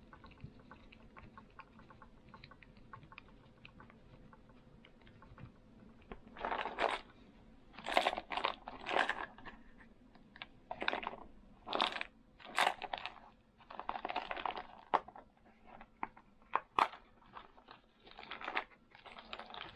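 A small clear plastic parts case being handled, with faint light ticks at first. From about six seconds in comes a string of short rustling, clattering bursts and sharp clicks from the plastic box and the small spare parts inside it.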